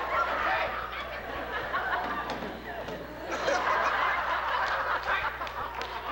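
Audience laughing and chattering, dipping briefly and swelling again about three seconds in.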